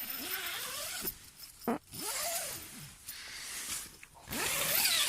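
A zipper pulled in three long, rasping strokes, about a second apart.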